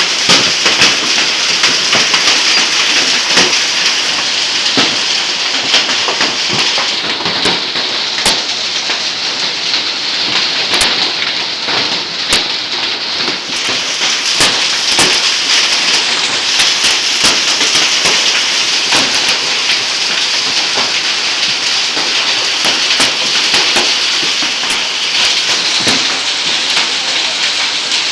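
Hailstorm: hailstones and rain pelting down in a dense, steady hiss, with many sharp clicks and cracks of stones striking hard surfaces.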